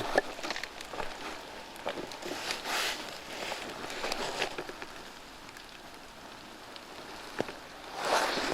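Rustling, crackling noise with scattered short sharp clicks. It swells briefly about two and a half seconds in and again near the end.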